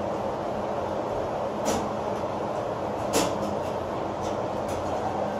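Steady mechanical droning hum with a faint low tone under it, broken by a few sharp clicks or light knocks, the loudest a little past halfway.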